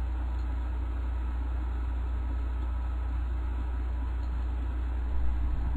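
Steady low hum under a light even hiss, with a brief soft bump near the end.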